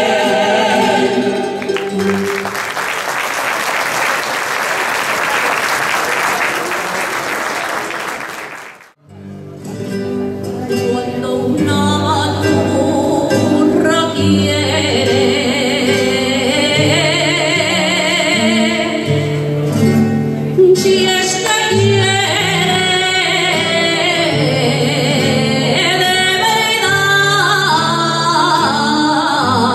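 A group of singers ends a song on a held chord, followed by audience applause for about six seconds. After a short break a new Aragonese folk song begins with plucked-string accompaniment and a woman singing solo into a microphone.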